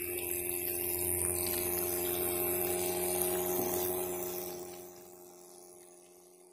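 Homemade 12-volt DC motor water pump running with a steady whine, muddy water spraying from its outlet pipe. The sound fades away about four to five seconds in.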